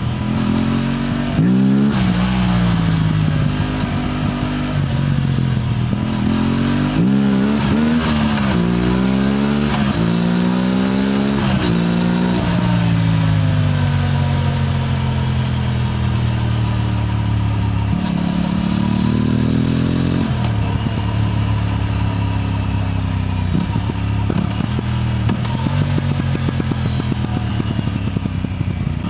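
Aprilia RS 457 motorcycle's parallel-twin engine under way, revving up through several gears with the pitch climbing and dropping back at each shift for the first twelve seconds or so. It then winds down for several seconds, picks up again briefly, and settles into a steady cruise.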